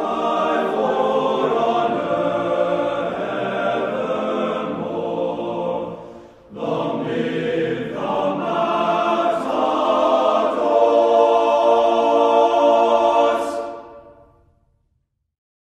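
Choir singing long sustained chords, breaking off briefly about six seconds in, then resuming and dying away near the end.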